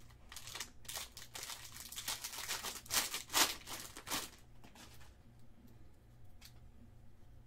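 Trading card pack wrapper crinkling and tearing as it is opened, for about four and a half seconds, then a single light tick near the end.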